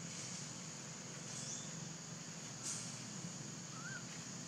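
Faint outdoor ambience: a steady high-pitched drone over a low hum, with a few brief high chirps and a single sharp click a little past halfway.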